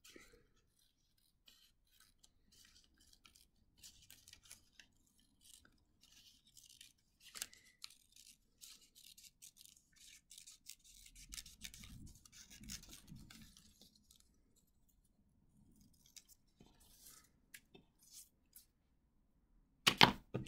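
Scissors making a faint run of short scratchy snips through thin cereal-box cardboard, with the card rustling as it is handled, and a sharp knock near the end.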